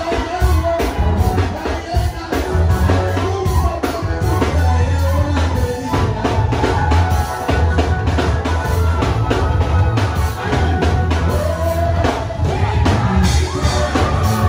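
Worship band music with singing over a drum kit and a strong, steady bass line.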